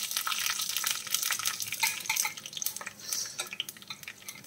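Mustard seeds sizzling and popping in hot oil for a tempering, a dense crackle of sharp pops that thins out and grows quieter toward the end as the seeds finish spluttering.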